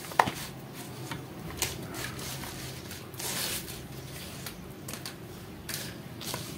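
Light handling noises as a capacitor and a pair of pliers are moved about on a foam mat: a sharp click just after the start, then a few faint taps and rustles, over a faint steady low hum.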